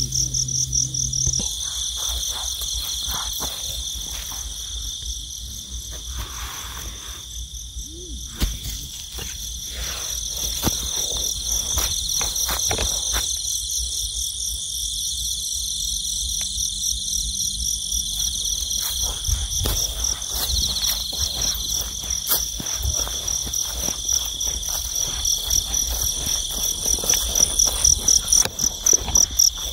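Night chorus of crickets and other insects: a fast pulsing high trill over a steadier lower buzz, without a break. Over it, footsteps and rustles in dry rice straw, thickest from about eight seconds in.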